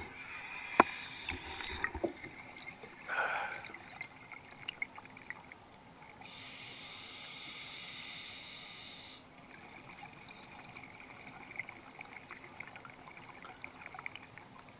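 Scuba diver breathing through a regulator underwater, heard through the camera housing: quiet bubbling and trickling with scattered ticks, and a steady hiss of air lasting about three seconds from some six seconds in.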